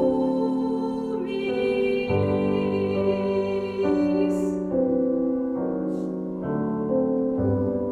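Choir singing a slow song in held chords that change about once a second, with piano accompaniment.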